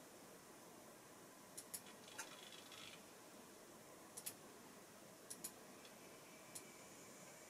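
Faint sharp clicks, several in quick pairs, with a short buzz about two seconds in: model railway turnout drives switching to set a route.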